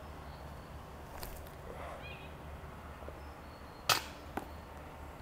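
A putted disc golf disc strikes the basket and fails to go in. There is one sharp knock about four seconds in and a lighter one half a second later.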